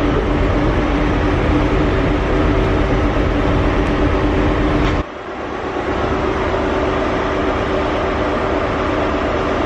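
Passenger train carriage interior noise: a steady running rumble with a low hum through it. The noise drops suddenly about five seconds in, then builds back to a steady level.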